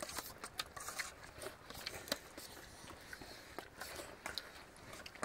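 Faint, irregular clicks and light knocks, about two or three a second.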